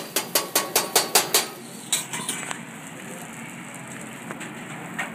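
Rapid sharp metallic clacks of a hibachi chef's metal spatula on the griddle and bowl, about four a second, stopping after about a second and a half. Then eggs and rice sizzle steadily on the hot flat-top griddle.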